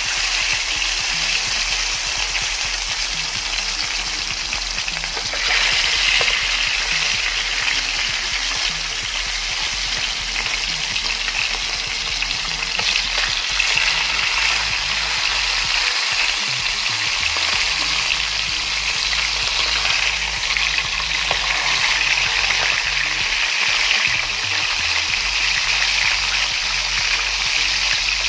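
Salted tilapia pieces frying in hot oil in a pan: a steady sizzle and crackle that grows louder about five seconds in.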